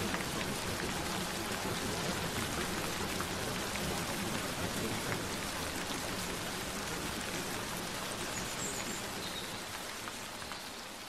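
Steady rain falling, slowly fading out toward the end.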